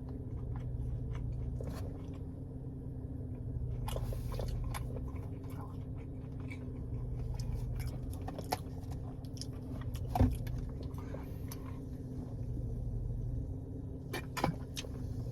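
A man chewing and biting fried mozzarella cheese bites close to the microphone, with many small wet mouth clicks, over a steady low background hum. One short, louder knock about ten seconds in.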